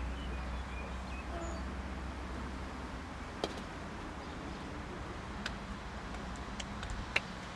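Croquet mallet striking a ball with a sharp click about three and a half seconds in, followed by several more short clicks of the balls, the loudest near the end, over a steady low outdoor background.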